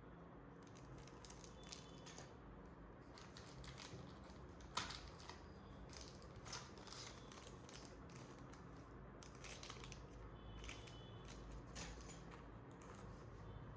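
Faint rustling and crinkling of packaging being handled, with scattered light clicks and one sharper click about five seconds in.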